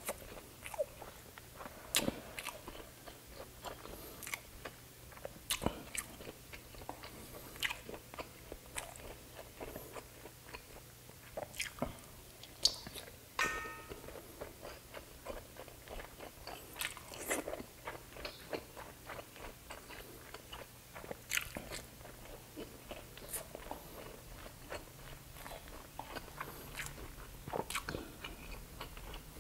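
Close-miked chewing and biting of grilled pork and chicken intestine (isaw) and other barbecued skewered meat, with irregular sharp clicks and wet smacks of the mouth.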